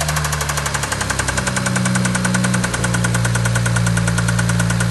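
BMW N54 twin-turbo straight-six running at idle just after start-up, with a loud, fast and even rattle over the engine note. The owner suspects a worn big-end (connecting rod) bearing.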